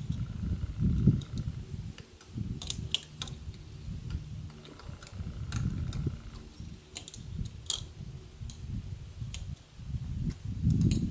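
Wrench tightening the nut of a 12 mm Triplex sleeve bolt in concrete to set the anchor, with a handful of sharp, scattered metal clicks. Low, gusty wind rumble on the microphone runs underneath and swells loudest near the end.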